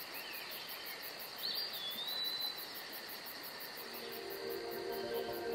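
Insects chirping in an even, high pulse, about four or five a second, with a bird's short whistled call about a second and a half in. Soft music fades in from about four seconds in.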